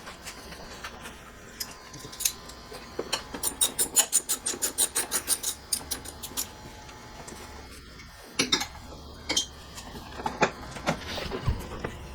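Hand ratchet wrench clicking in an even run, about five clicks a second for some three seconds, as a 10 mm fastener on the plastic wheel-well cover is turned. A few scattered metal clinks and knocks of tools follow.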